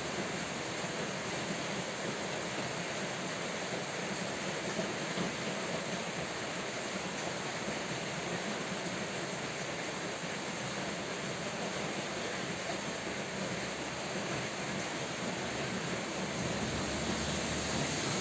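Steady rain, an even hiss with no distinct events.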